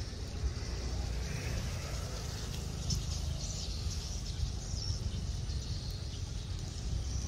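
Many swiftlets twittering in a flock, a dense run of short high-pitched chirps over a steady low rumble.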